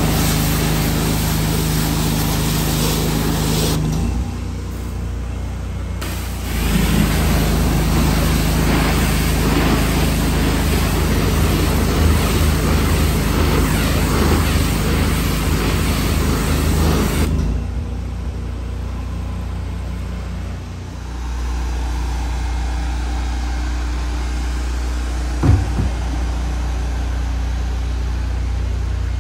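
Pressure-washer wand spraying a high-pressure water jet onto plastic trash cans, over the steady running of the pressure washer's motor. The spray cuts off for about two seconds near the start, resumes, then stops about two-thirds of the way through, leaving the motor running, with a single thump near the end.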